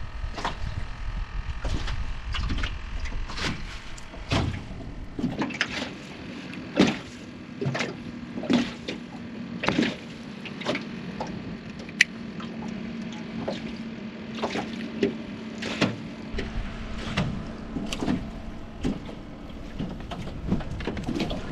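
Irregular knocks, clunks and rattles of handling gear and a landed striped bass against a small aluminum fishing boat and its cooler, over a low steady hum through the middle.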